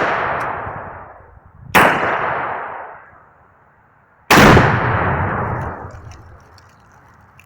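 One-pound Tannerite binary-explosive targets detonating under rifle fire: one blast as it starts, another about two seconds in, and a bigger, longer one about four seconds in. Each is a sharp boom followed by a long rumbling echo that dies away.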